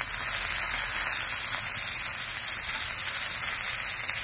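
Ground-beef patties sizzling in oil on a hot flat-top griddle, a steady hiss.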